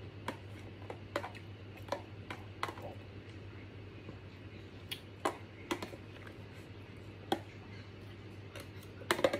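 Metal spoon clicking and scraping against a plastic food container as food is scooped out: a series of sharp taps, roughly one a second, with a quick cluster near the end. A steady low hum runs underneath.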